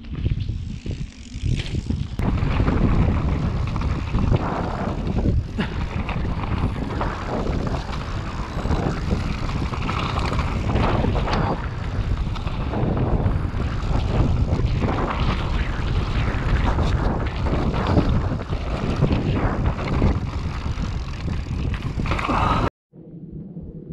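E-mountain bike riding fast down a dirt trail: tyres rumbling over the ground, chain and frame rattling with many small knocks, and wind rushing on the microphone. It cuts off suddenly near the end, and a much quieter steady sound follows.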